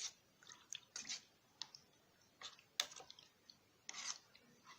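A spoon stirring ground herbs into warm milk, clinking against the side of the vessel in a few faint, irregular clicks.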